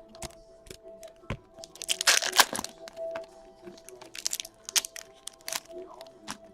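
Trading cards and their foil pack wrappers being handled: a run of crinkles and clicks, with a louder ripping sound about two seconds in. Faint background music plays underneath.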